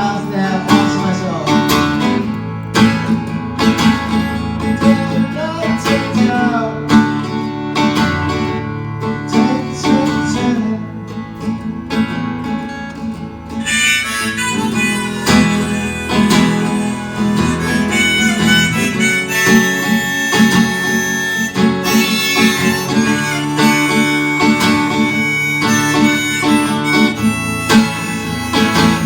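Live acoustic music with no singing: guitar strumming under a wavering lead melody. About halfway through, the playing turns fuller and brighter.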